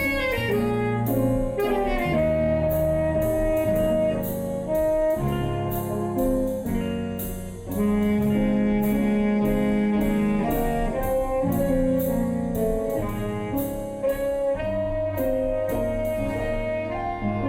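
Instrumental music: held melody notes over chords, with a steady beat of regular strikes.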